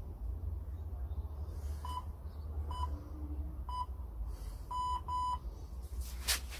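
Workout interval timer beeping: three short high beeps about a second apart, then two more in quick succession, the signal that the round is ending and a new exercise starts. A steady low rumble lies underneath.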